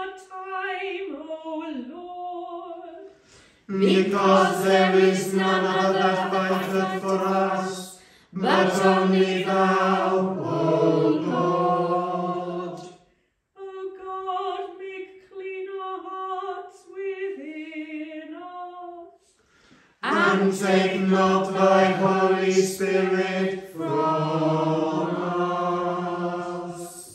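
Unaccompanied sung versicles and responses, the suffrages of Evensong: a single woman's voice sings each versicle and the congregation answers in a louder, fuller sung response, twice over.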